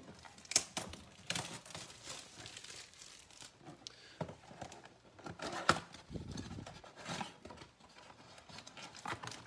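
Crinkling and rustling of card packaging being handled, with scattered sharp clicks and knocks, the loudest about half a second in and just before the middle.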